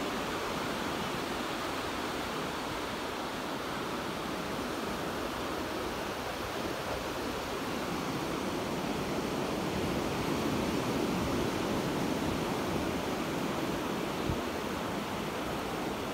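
Calm low-tide surf washing onto a sandy beach, a steady rush of breaking waves that swells a little about ten seconds in.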